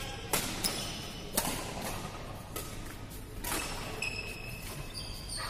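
Badminton rackets striking a shuttlecock in a rally: about five sharp hits a second or less apart, the loudest about one and a half seconds in, followed by short high squeaks near the end.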